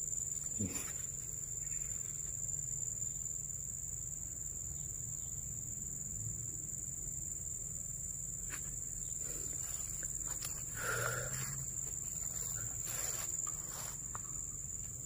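Insects trilling steadily on one high pitch, with a few faint rustles and knocks as leaves are handled.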